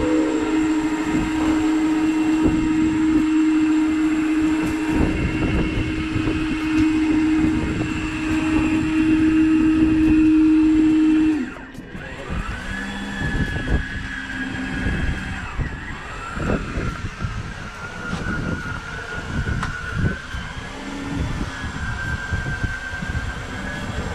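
Electric fishing reel motor whining at one steady pitch as it winds in line, then cutting off suddenly about eleven seconds in. A quieter, higher whine that wavers in pitch carries on over a low rumble of engine and sea.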